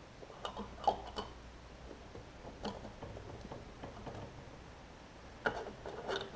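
Light clicks and taps of a plastic carburetor float bowl being handled and pushed into place under a Briggs & Stratton mower engine's carburetor. A few clicks come about a second in, and a tighter cluster near the end.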